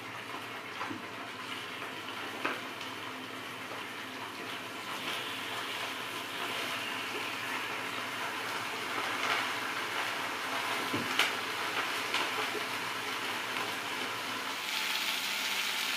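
Olive oil sizzling in a very hot frying pan as cod kokotxas are laid in skin side down to sear, getting louder near the end. A few light clicks of utensils.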